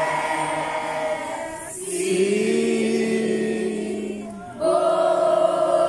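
A crowd of children chanting together in long held notes: a high held chant, then a lower held chant in the middle, then the high chant comes in again about two-thirds of the way through.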